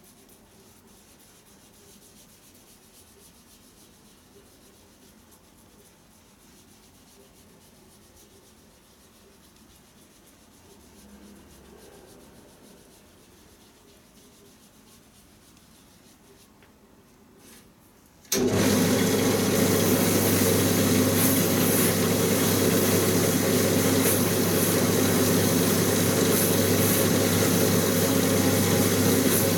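Faint rubbing of a stain-soaked sponge on a leather outsole. About 18 seconds in, the shoe-finishing machine's motor switches on abruptly and runs steadily with a hum as its rotary brush wheels spin. The freshly stained sole is pressed to a brush to strip off excess ink and dry it.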